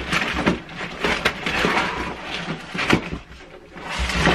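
Hands rummaging in a box of packaged fishing lures: irregular crackling rustles and light knocks of packaging being handled.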